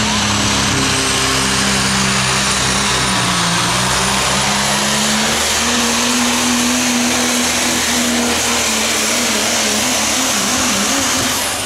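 A super stock diesel pickup's engine at full throttle pulling a weight transfer sled, with a high turbo whistle that climbs slowly through the pull. Near the end the engine lets off and the whistle drops away.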